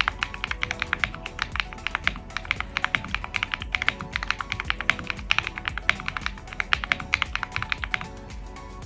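Fast, continuous typing on a mechanical keyboard fitted with AKKO Cream Yellow Pro linear switches. The keys clack in quick runs and pause briefly near the end.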